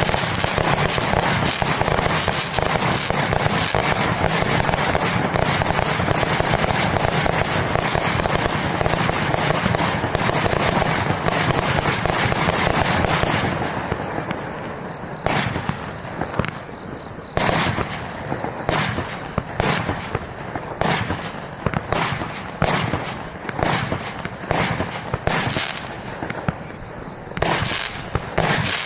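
Bigsmile Showbox, a 180-shot compound firework cake with 16 mm tubes, firing. It starts as a dense, continuous barrage of shots and crackling bursts; about 13 seconds in it thins out to separate bangs, about one or two a second, with short gaps.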